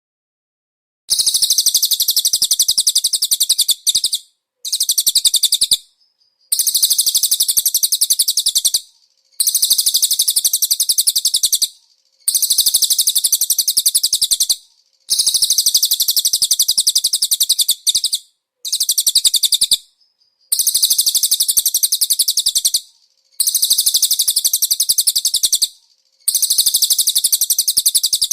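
Small songbird singing a very high, rapid chattering trill in repeated bouts of two to three seconds with short pauses between them, as in a konin masteran track filled with cililin phrases. The song starts after about a second of silence.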